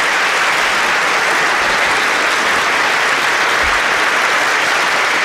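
Concert audience applauding, a steady, dense sound of many hands clapping.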